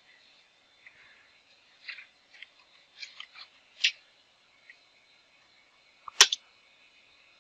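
Computer keyboard keys clicking: a quick run of keystrokes over about two seconds, then a single louder keystroke about six seconds in.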